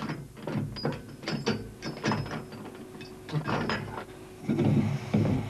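Irregular clicks, knocks and clattering of equipment being handled, with a duller thump or two near the end and a faint steady hum beneath.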